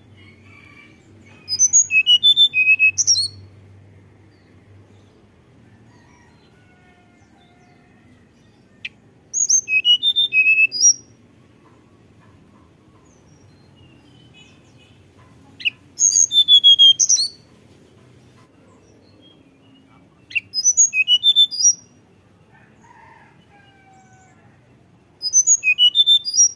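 Hill blue flycatcher (tledekan gunung) singing: five short phrases of quick, high, clear flute-like notes, a few seconds apart.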